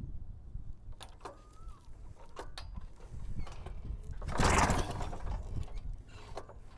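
Paramotor engine being pull-started by its recoil starter: scattered clicks and rattles, then one loud whirring pull about four seconds in, without the engine catching and running.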